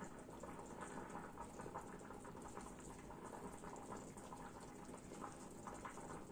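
Faint wet squelching and soft scraping of thick chocolate muffin batter being scraped out of a plastic jug into silicone muffin cups with a silicone spatula, in many small irregular ticks.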